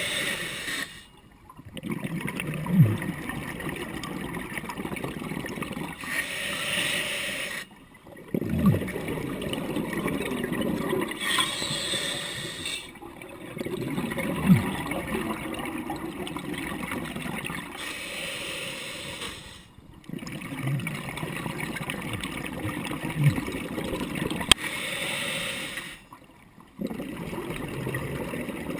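Scuba diver breathing through a regulator underwater: a short hiss on each inhale, then a long bubbling rumble of exhaled bubbles, with brief pauses between. About four breaths, with a few louder bubble pops.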